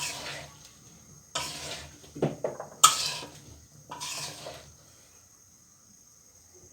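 Spatula scraping and knocking in a karahi as cauliflower and potato pieces are stirred and sautéed with spices, four strokes about a second apart, then quieter near the end.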